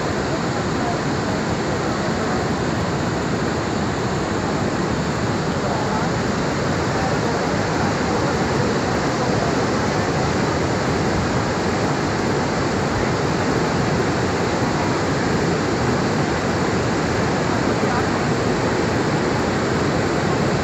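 Steady rushing of fast-flowing floodwater, an even, unbroken noise that neither rises nor falls.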